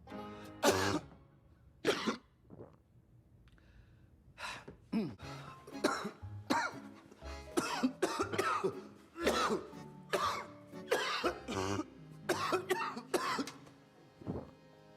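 A man coughing: two single coughs, a short pause, then a long fit of hacking coughs and throat clearing, one after another, with background music underneath.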